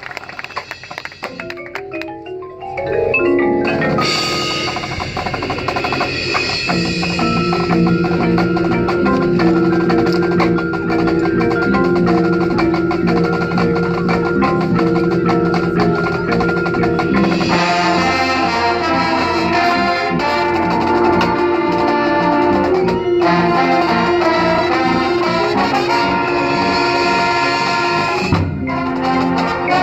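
High school marching band playing: a rising run on marimba and other mallet percussion, then the full band of brass and drums comes in about three seconds in with loud held chords.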